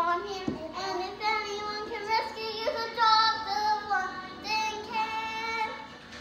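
A young girl singing, with some notes held longer.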